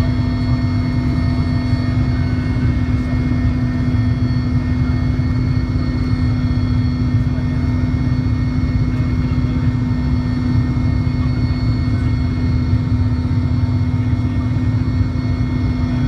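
Cabin noise of a Mil Mi-17 helicopter in flight: its twin turboshaft engines and rotor drone loudly and steadily, a deep rumble under a constant strong hum and fainter high whines, unchanging throughout.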